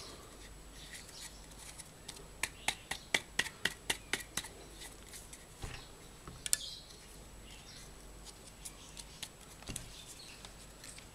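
Handling noise from a grass trimmer's small electric motor and its plastic housing parts being worked by hand: a quick run of about ten light, sharp clicks about two seconds in, one more click about halfway through, and faint taps near the end.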